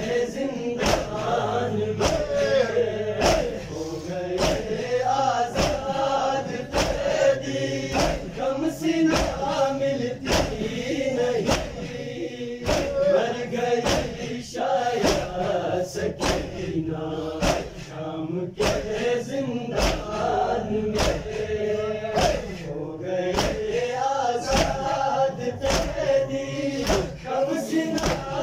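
A crowd of men chanting a mourning noha together in unison, over a steady rhythm of sharp slaps from chest-beating (matam), roughly three strikes every two seconds.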